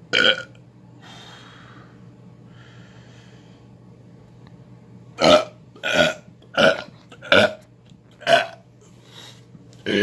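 A man burping on purpose: one short burp at the start, then after a pause with faint breathy sounds, a quick run of five short burps a little under a second apart, a faint one, and another burp at the very end, over a low steady hum.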